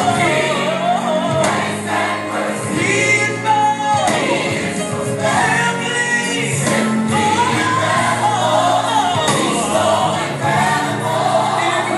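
Gospel choir music playing, with voices singing over a steady accompaniment.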